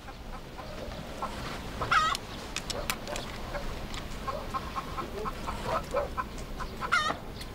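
Chickens clucking, with a few short calls about two seconds in and again near the end.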